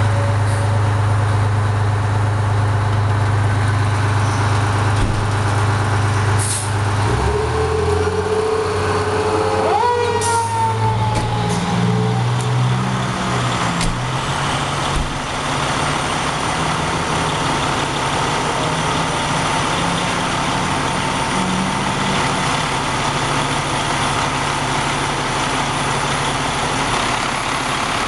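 Fire truck's diesel engine running steadily in the station bay, with short hisses of the air brakes releasing. About ten seconds in, a siren winds up quickly and then slowly falls away, and the engine note rises and stays up.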